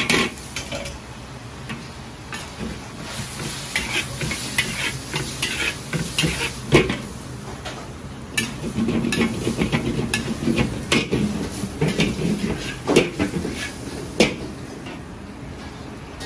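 Sliced onions and pork sizzling in a large wok while a metal wok spatula stirs and scrapes through them, with sharp clanks of the spatula against the wok now and then, the loudest about seven seconds in and near the end.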